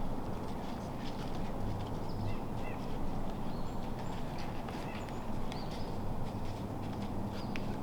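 Outdoor woodland ambience: a few short, high bird chirps over a steady low background rumble, with scattered light rustling.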